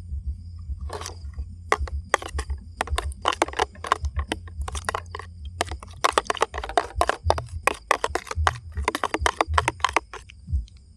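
Rapid, irregular cracking and crunching, many sharp snaps in quick succession, thinning out near the end, over a steady low rumble.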